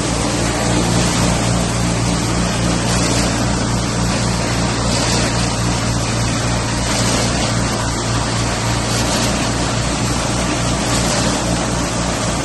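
Paver block making machine running: a loud, steady mechanical hum and rattle, with a brief rise in hiss about every two seconds.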